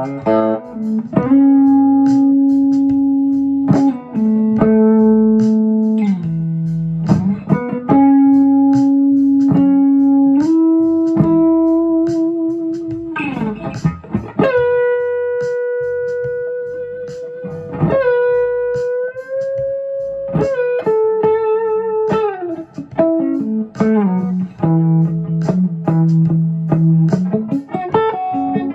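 Clean electric guitar played through a Mu-Tron Boostron II boost and compressor pedal into a tube amp: slow phrases of long, sustained single notes and double stops, with several string bends and slides.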